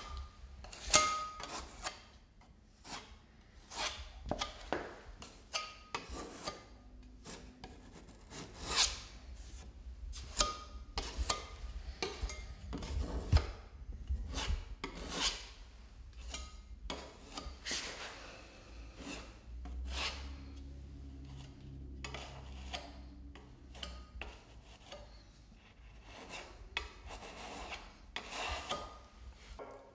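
Metal putty knife scraping across painted wood door casing in many short, irregular strokes, pressing and wiping wood filler into nail holes.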